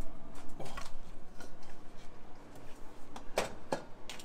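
Metal spoon clinking against a stainless steel pot and bowl as cooked seafood is scooped out of boiling water: scattered light clicks, with two sharper clinks near the end.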